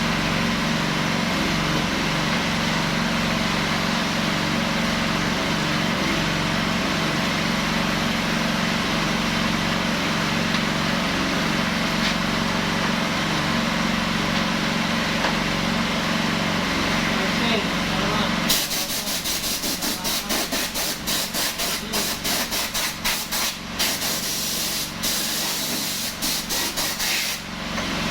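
Honda GXH50 single-cylinder four-stroke engine running steadily, driving a portable firefighting pump under pressure. About two-thirds of the way in, a harsh rushing noise with rapid crackling takes over and partly covers the engine.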